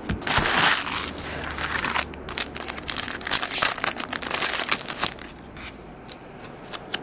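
A trading card pack wrapper being torn open and crinkled, with a dense crackle that stops about five seconds in, followed by a few light clicks as the cards are handled.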